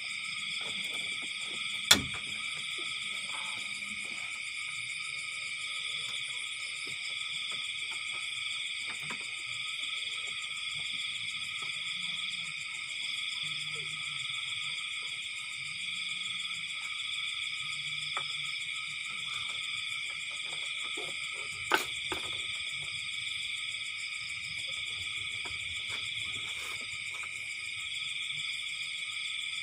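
Night chorus of calling insects and frogs, a steady high-pitched drone in several layers with a slight pulsing. Two short sharp clicks stand out above it, one about two seconds in and another about twenty seconds later.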